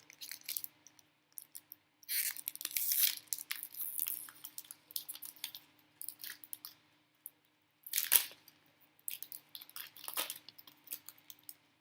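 Foil wrapper of a Pokémon card booster pack being torn open and crinkled by hand, in irregular rustling bursts, loudest about two seconds in and again about eight seconds in.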